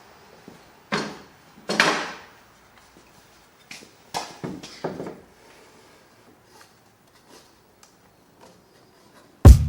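A few short knocks and sliding scrapes of wood being handled in a workshop, the longest a half-second scrape about two seconds in. Music comes in loudly just before the end.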